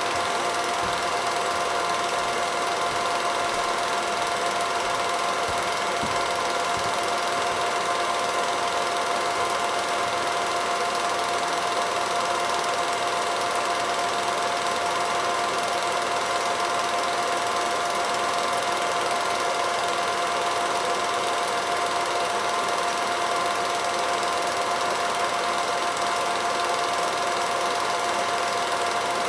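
Home-movie film projector running steadily: an even mechanical whir and clatter from the motor and film drive, with a constant hum.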